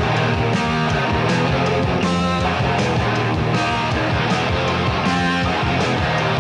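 Live hard rock band playing an instrumental passage: distorted electric guitars over bass and a driving drum beat, with no singing.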